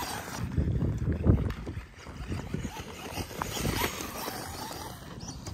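Losi Promoto-MX 1/4-scale RC dirt bike's electric motor running as it rides over loose gravel, with wind buffeting the microphone; the wind gusts are loudest about a second in.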